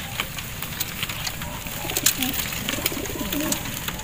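Racing pigeons cooing: several low, rising-and-falling coos in the second half, with a few sharp clicks scattered through.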